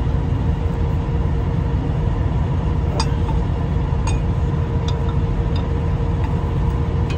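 A few sharp metal clinks of a wrench on the clamp of a truck's air brake chamber, about three, four and five seconds in, over a steady low rumble with a constant hum.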